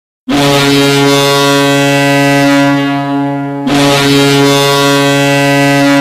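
Vityaz Balashikha's ice hockey arena goal horn sounding a goal: two long, low, steady blasts of about three seconds each, the second starting a little past halfway.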